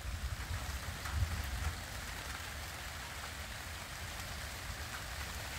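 Steady rain falling, an even hiss of drops, with a low rumble in the first two seconds.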